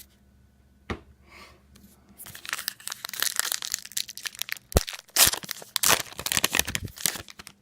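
Baseball card pack wrapper being torn open and crinkled by hand. There is a single tick about a second in, then dense crackling from about two seconds in, with a couple of sharper cracks.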